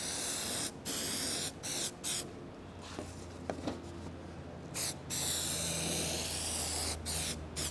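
Aerosol can of Würth zinc-rich primer hissing in a few short bursts, then, after a pause, a longer spray of about two seconds and one more short burst near the end. This is the primer going onto a freshly cut bare-metal panel edge to stop rust.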